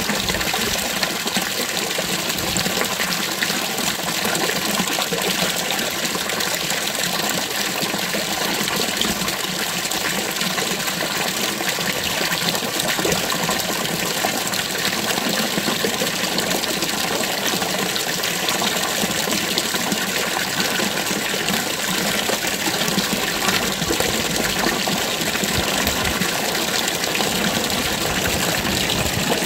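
Water from a stone fountain's spout splashing steadily into its basin.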